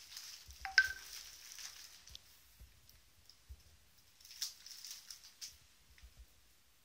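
Bubble wrap crinkling and rustling softly as a cat noses and pushes into it in a cardboard box, with one sharp click about a second in and a few more soft crackles later.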